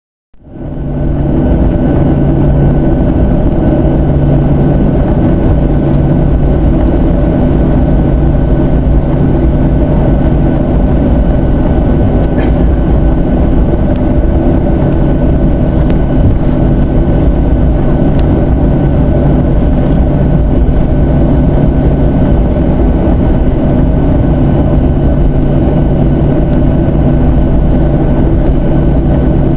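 A Boeing 737-700's CFM56-7 turbofan engines heard from inside the cabin: a loud, steady, even roar with several steady humming tones as the jet rolls on the airfield. It cuts in abruptly just after the start and holds level throughout.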